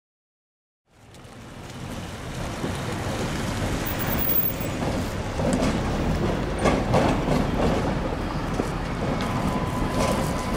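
Tatra T3 tram approaching over worn track: a steady low rumble fades in after about a second, then irregular knocks and rattles of the wheels on the rails set in about halfway through.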